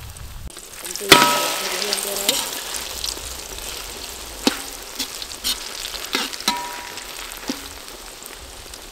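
A duck egg fries in hot oil in a steel wok with a steady sizzle, while a metal spoon scrapes under it and flips it. The spoon knocks against the wok several times; the loudest knock, about a second in, rings briefly.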